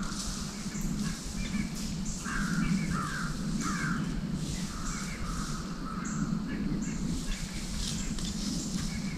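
Harsh, caw-like animal calls repeating about once a second over a steady low rumble.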